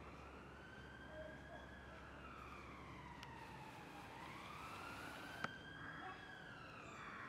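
Faint emergency-vehicle siren wailing, its pitch slowly rising and falling every few seconds, with a single sharp click about five seconds in.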